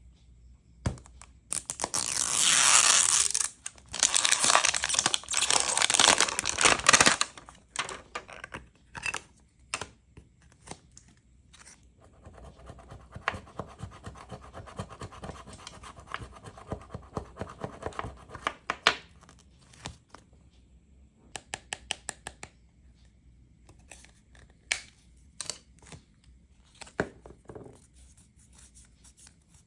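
Packaging of a blind-box toy capsule being torn open in a few loud ripping bursts, followed by a coin scraping the coating off a scratch-off card for several seconds. Scattered clicks and short rustles of the card being handled follow near the end.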